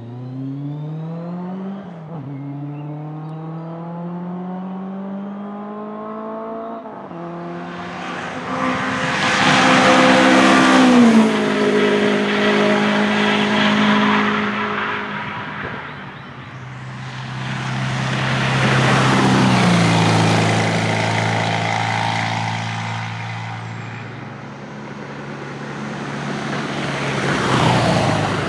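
Classic race cars at full speed on a banked oval. One car accelerates away through the gears, its engine note climbing, with upshifts about two and seven seconds in. Then two cars pass close by, each engine note dropping as it goes past, and near the end a Porsche 356's air-cooled flat-four comes by close.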